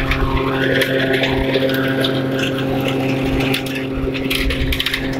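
Weiwei 9ZF-400 feed grinder running with a steady hum, together with a woven plastic sack rustling and hands scooping freshly ground corn meal.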